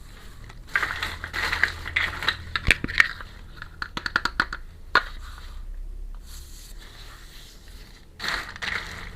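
Small plastic toy pieces and packaging being handled during an unboxing: crinkling, scraping and many sharp little clicks. The handling comes in a busy stretch from about a second in to about five seconds, goes quieter, then picks up again near the end.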